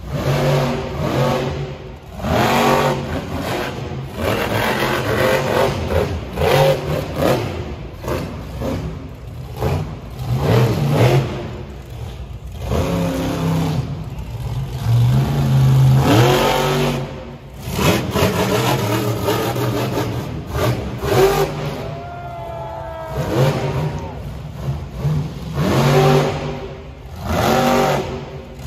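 Monster trucks' supercharged V8 engines revving hard, the pitch climbing and dropping again and again in surges every few seconds.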